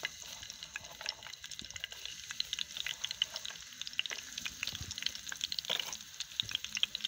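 Sliced onions frying in hot oil in a steel pan for a tadka: a steady sizzle full of small crackles, with a metal spoon stirring through them.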